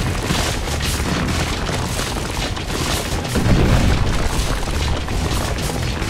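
Explosion and blast-wind sound effect: a long, dense rumble that swells about three and a half seconds in, with music underneath.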